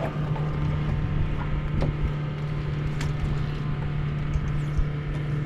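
Steady low hum of a small electric trolling motor running on a small sailboat, with low wind rumble on the microphone and a couple of faint ticks.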